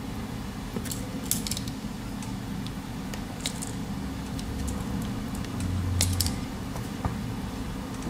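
Small scattered clicks and scrapes of multi-tool pliers gripping and prying at a USB-C plug's metal shell and plastic housing, over a low steady hum.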